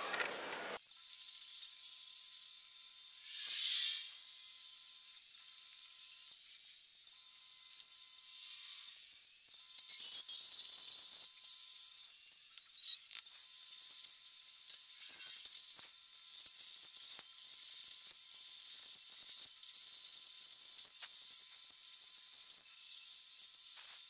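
Metal lathe drilling and boring out the centre of a spinning metal bar, heard as a steady high-pitched hiss with a thin whine and no low end. It drops out briefly three times in the first half.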